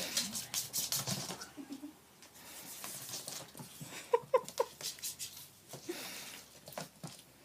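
A kitten's paws pattering on a wooden floor as it runs and pounces, in quick runs of light taps. About four seconds in come three short squeaky sounds.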